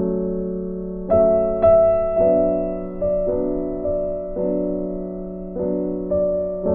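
Background music: a slow, gentle piano piece, chords and single notes struck every second or so and left to ring and fade.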